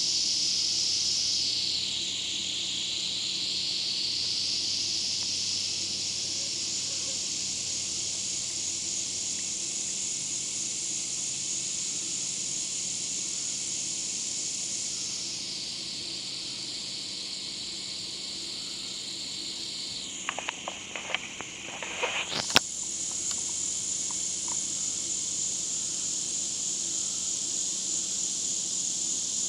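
A steady, high-pitched insect drone, its pitch dipping and rising a little. About two-thirds of the way in it briefly drops away under a quick run of clicks and one sharp knock, then carries on.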